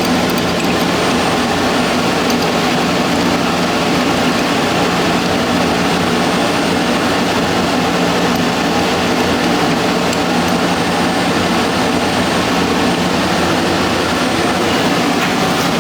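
Steady, loud machinery drone with a constant low hum and no change in pitch or rhythm, from equipment running in a boiler room.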